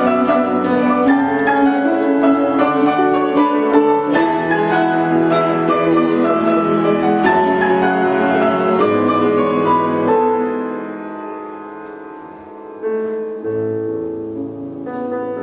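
Grand piano and cello playing together, long bowed cello notes over piano chords. About ten seconds in the music softens and dies away. Just before the end the piano starts a new phrase, with the cello bow lowered.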